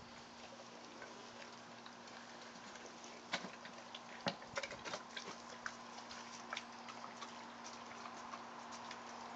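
Great Dane puppy chewing raw chicken backs, the bones crunching in sharp irregular clicks that come thickest through the middle.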